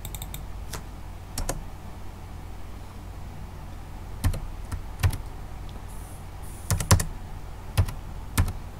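Computer keyboard keystrokes: a handful of separate key presses at irregular intervals with pauses between them, over a steady low hum.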